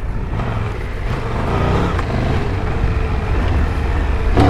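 2022 Triumph Tiger 1200 Rally's three-cylinder engine pulling under throttle on a rough dirt trail, its pitch rising and falling with the throttle over a heavy low rumble.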